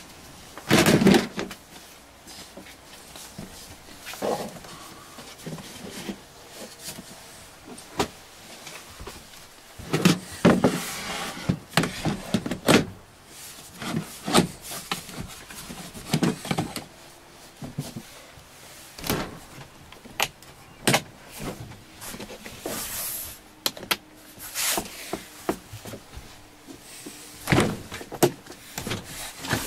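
Irregular knocks, clicks and bumps of a folding caravan's wooden overhead cupboard and wall panels being handled and fitted into place, with rustling between; the loudest knocks come about a second in and again around ten seconds in.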